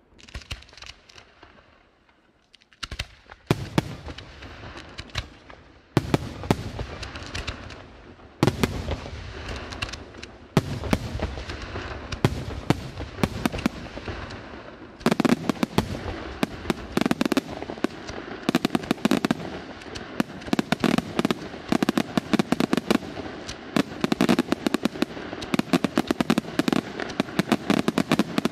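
Aerial firework shells bursting. It is nearly quiet for the first few seconds, then separate loud bangs start about three seconds in. From about fifteen seconds in they build into a dense barrage of rapid bangs.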